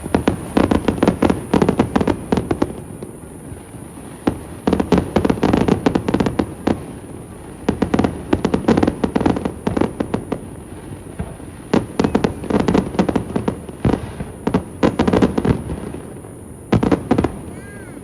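Aerial fireworks bursting in rapid salvos: dense clusters of sharp bangs and crackles, each lasting one to three seconds, coming in about six groups with short lulls between them.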